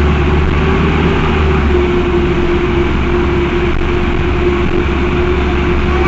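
Cummins ISBe four-cylinder diesel of an Agrale MT12.0 LE midibus running steadily, with the engine-driven radiator fan engaged and a steady tone over a low drone. The fan is engaged because the engine runs hot, as these Cummins-engined buses were known to do.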